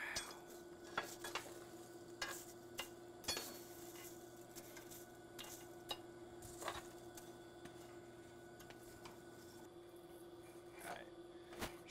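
Steel blade heating in a coal forge fire: irregular clicks, scrapes and crackles as the blade and tongs shift in the burning coal, over a steady hum.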